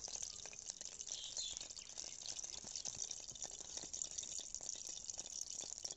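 A hand squishing and kneading wet egg pakora batter in a steel bowl: soft wet squelches with many small irregular clicks.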